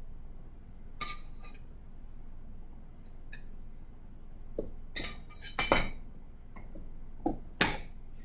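Metal measuring spoon and baking powder can clinking and tapping as baking powder is spooned into a stainless steel mixing bowl: a scatter of short clinks, the loudest about two thirds of the way through and near the end.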